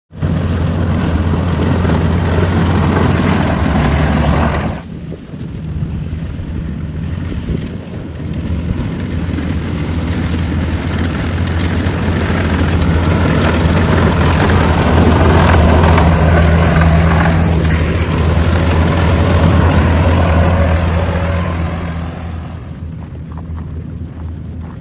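Kubota rice combine harvesters running as they cut, a steady low diesel engine drone with a noisy mechanical rush above it. The sound drops suddenly about five seconds in, builds to its loudest around the middle and falls away in the last few seconds.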